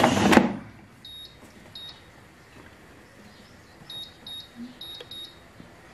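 Jocca air fryer: the basket drawer is shoved shut with a short clunk, then its touch control panel gives a string of short high beeps as the buttons are pressed, three about a second in and four more near the end.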